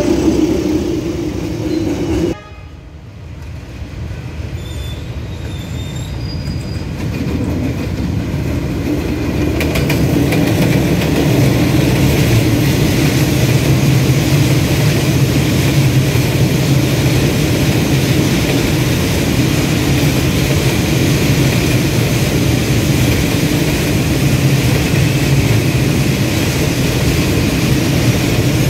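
A train's horn sounding one steady note, cut off abruptly about two seconds in. Then a train approaching, growing louder over several seconds, and running past with a steady low rumble.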